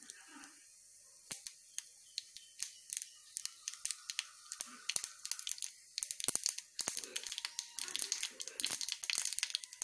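Mustard seeds and urad dal spluttering in hot oil in a small tempering pan: scattered sharp pops begin about a second in and come faster and denser, with a sizzling hiss building through the second half. The mustard seeds bursting like this is the sign that the tempering is done.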